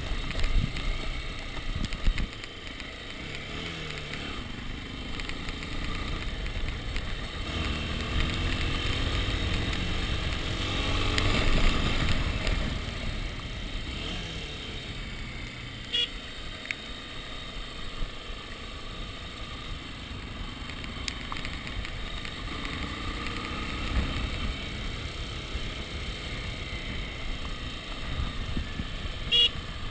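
Dirt bike engine running at low revs on a downhill gravel descent, its note rising and falling with the throttle and loudest about eleven seconds in. Two short, sharp sounds cut through, about halfway and near the end.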